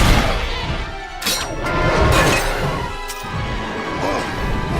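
Cartoon action-scene soundtrack: music under a run of crashing, shattering impact effects. The loudest crash comes right at the start, with more spread through the next few seconds.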